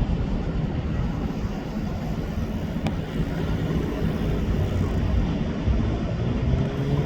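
A motor's steady drone over a low rumble, its hum growing stronger from about halfway through.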